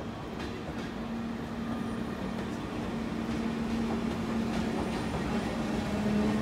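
SBB Re 460 electric locomotive and EW IV passenger coaches rolling through the station, a steady hum over the rumble of wheels on rail with faint clicks, growing slowly louder as the coaches pass.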